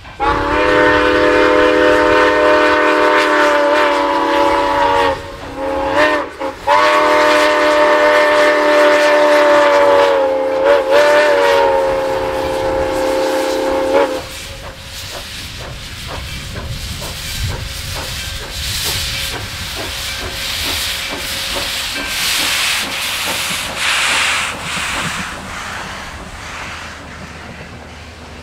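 Steam locomotive whistle blowing a steady chord in long and short blasts, the last long one ending about 14 seconds in. The 2-8-2 Mikado then passes with steam hissing from its open cylinder cocks and a run of clicks from the train's wheels over the rails.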